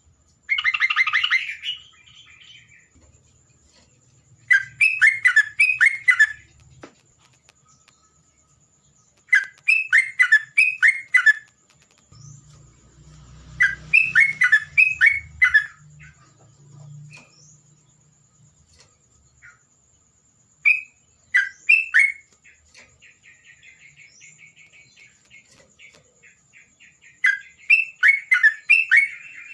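Yellow-vented bulbul (terocok) singing: short phrases of quick, bubbly, liquid notes repeated every few seconds, with a faint rapid trill between phrases.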